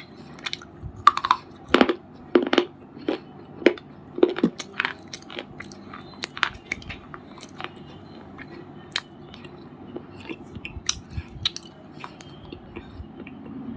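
A white unshaped bar being crunched close to the microphone: sharp, irregular cracks and crumbles, loudest and most frequent in the first five seconds, then thinning to lighter, scattered crackles.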